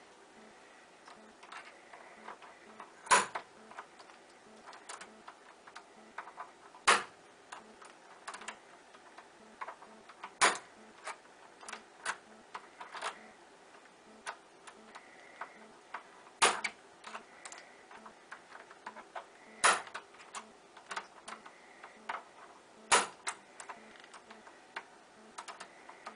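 A bump key in a Schlage deadbolt being struck, again and again, to jar the pin tumblers up to the shear line. There are sharp metallic knocks every three to four seconds, about seven in all, with lighter clicks and rattles of the key being jiggled and reset between them; the lock does not open.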